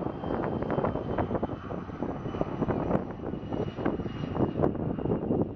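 Canadair Challenger business jet taking off, its twin rear-mounted turbofans at takeoff power: a steady rush of jet noise with a thin high whine that slides slightly lower in pitch as the jet moves away.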